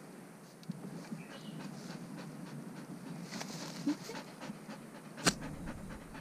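Golden retriever panting with her tongue out, winded after digging out bamboo shoots. A single sharp knock comes about five seconds in.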